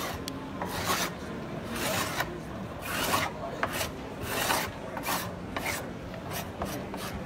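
Hand scrubbing on a wooden tongue-and-groove door, working off old paint softened by chemical stripper: repeated rasping strokes, about two a second, coming quicker near the end.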